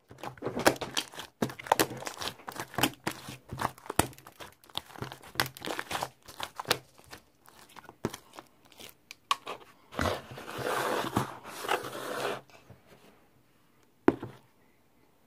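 Crinkling and crackling rustles with many quick irregular clicks, like something crumpled or handled. A louder, continuous rustle comes about ten seconds in, then the sound stops about two seconds later, with one sharp click near the end.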